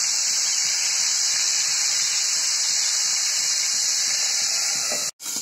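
Tilapia frying in hot mustard oil in a kadai, a steady sizzle. It cuts out for an instant near the end.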